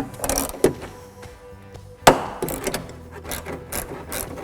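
Ratchet with a 10 mm socket and extension working a door-handle mounting nut inside a steel door: a few knocks, a sharp metal clank about two seconds in that rings briefly, then quick ratchet clicks near the end. Faint background music plays underneath.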